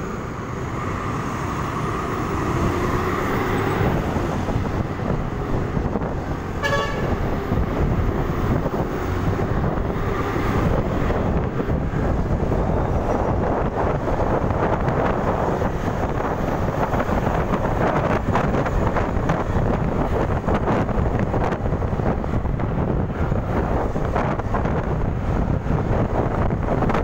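Motor scooter riding in traffic and speeding up, its engine and road noise swelling into heavy wind buffeting on the microphone. A short horn toot sounds about seven seconds in.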